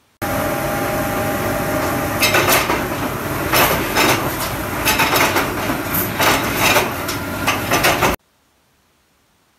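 Metalworking machinery in a hex-nut workshop running with a steady hum. About two seconds in, irregular metal clanks and clatters join it. The sound cuts off suddenly near the end.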